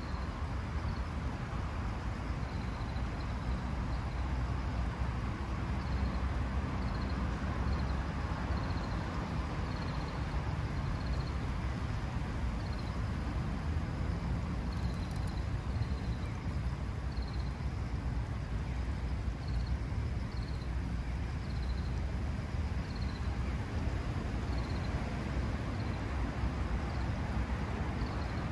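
Fountain water running down a stone cone into a shallow pool, a steady wash of splashing water over a low rumble. A faint high chirp repeats about once a second.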